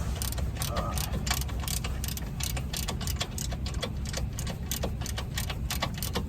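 Socket wrench ratchet clicking rapidly as a brake bolt is run in by hand, several clicks a second in uneven runs.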